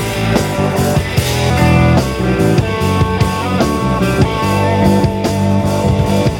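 Rock band playing an instrumental passage: electric guitar notes held over bass and drums keeping a steady beat.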